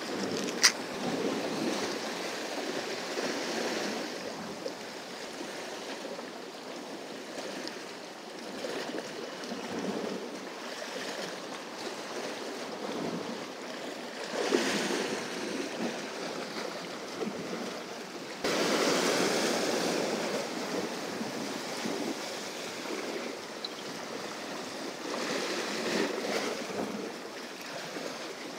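Sea waves washing and breaking against shoreline rocks, swelling and easing, with louder surges about halfway through and again about two-thirds through. A single sharp click comes just under a second in.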